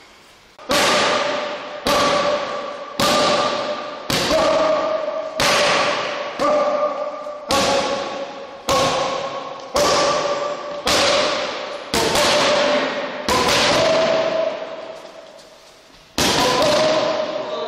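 Boxing gloves punching focus mitts about once a second, each sharp thud ringing on in the hall, with a pause of about three seconds near the end.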